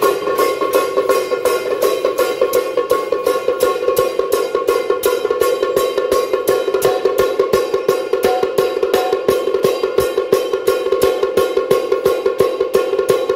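Temple-procession percussion of gongs and cymbals struck in a steady, fast beat, about three to four strokes a second, over a continuous metallic ringing.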